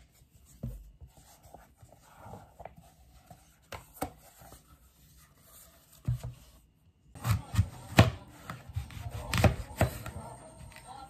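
Kitchen knife cutting a green apple on a plastic cutting board: for the first several seconds only soft handling clicks and taps, then, about seven seconds in, a series of sharp knocks as the blade goes through the apple and strikes the board.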